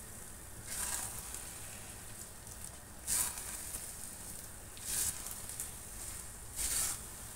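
Thick purple glutinous-rice biko sizzling in a hot pan as a spatula stirs and presses it, with four short hissing bursts spaced about two seconds apart.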